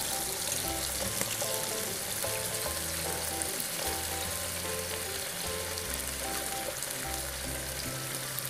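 Hot frying pan of oil, garlic, red mullet and chicory sizzling steadily as fish stock is poured in and stirred with a spoon, under background music with a bass line.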